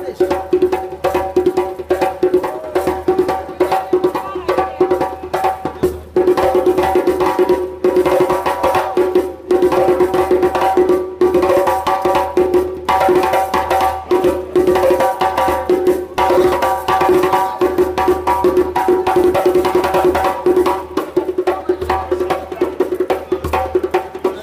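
Live street percussion: drums and sharp wooden clicks playing a fast, steady rhythm, with a held pitched tone running underneath.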